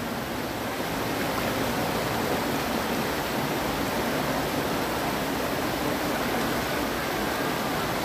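Stream water rushing steadily over rocks at the foot of a small waterfall.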